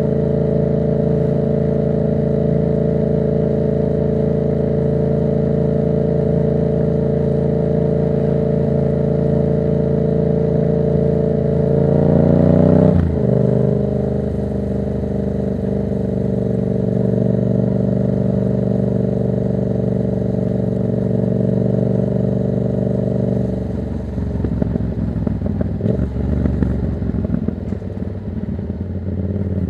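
Yamaha MT-07's 689 cc parallel-twin running loud through an open Black Widow exhaust with no dB killer, cruising at steady revs. About halfway the revs climb briefly and drop sharply at a gear change, then hold steady again. In the last few seconds the note breaks into an uneven crackle as the throttle is rolled off.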